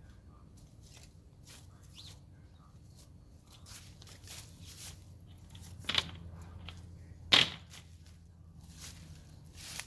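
Faint rustling and handling sounds with scattered light clicks, and two sharp knocks about six and seven and a half seconds in.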